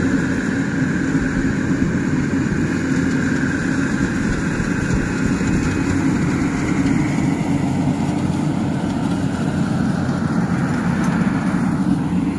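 Yanmar YH 8500 rice combine harvester running steadily, its engine and threshing machinery making a continuous, loud, low drone.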